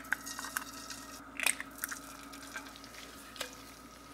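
Eggs being cracked and dropped into a hot buttered stainless steel frying pan: sharp shell cracks at the start and again about a second and a half in, with small scattered ticks and crackles from the frying butter over a faint steady hum.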